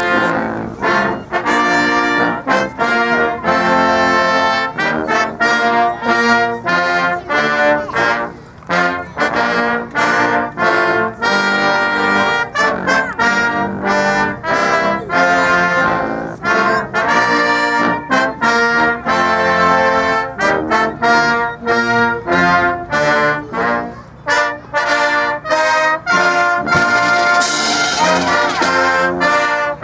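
Brass music, with trombones and trumpets playing a quick run of short notes. A hiss joins near the end.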